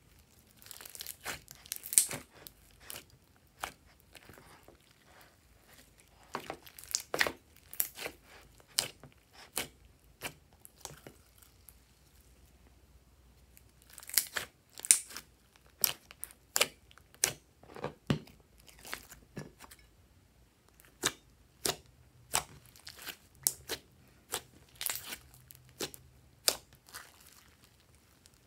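Hands squeezing, folding and stretching glossy slime with glitter and confetti mixed in: irregular sticky clicks, pops and crackles in clusters, with short quieter gaps between handfuls.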